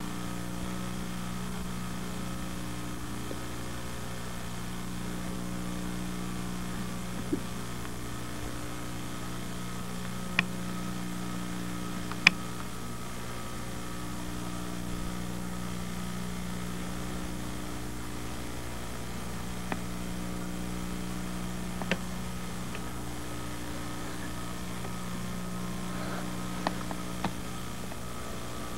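A steady low hum, with a handful of brief sharp clicks scattered through it, the loudest about twelve seconds in.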